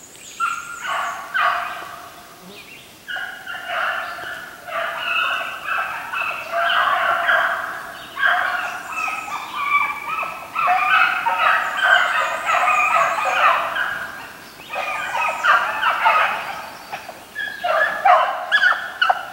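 Hounds baying in chorus as they run a hare's track, the calls overlapping in long runs with short breaks and loudest near the end.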